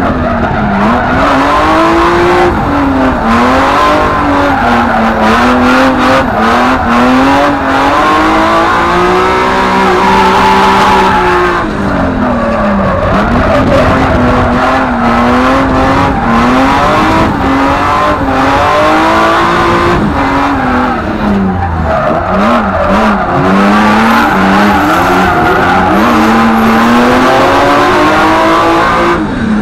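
Drift car's engine heard from inside the cabin, revving hard and rising and falling with the throttle as the car slides, with tyres screeching. Short sharp cracks come in clusters at times.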